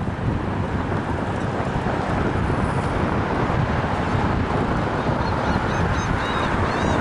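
Steady wind noise on the microphone of an action camera riding along on a moving bicycle. About five seconds in, a few short high bird chirps sound over it.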